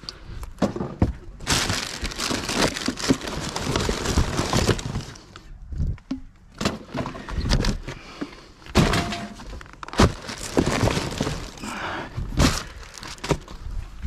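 Rummaging through bags of rubbish in a dumpster: plastic rustling, with irregular knocks and clatters as items are shifted about, and a few sharper knocks in the second half.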